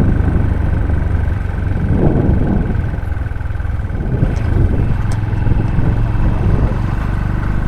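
Motorcycle engine running steadily while riding: a low rumble with a thin steady whine above it.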